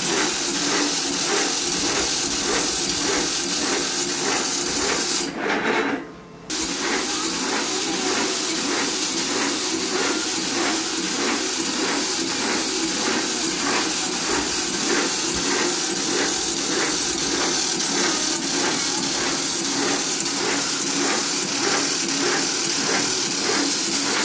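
Fully automatic Hung Thuan Vietnam-model agarbatti (incense stick) making machine running, with a quick, even mechanical clatter of a few strokes a second as it coats bamboo sticks and pushes them out. The sound briefly cuts out about five seconds in.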